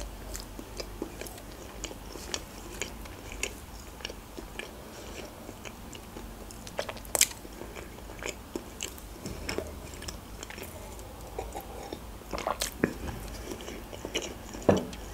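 Close-up chewing of soft, fluffy pancakes: wet mouth clicks and smacks, with a few louder clicks about seven seconds in and near the end.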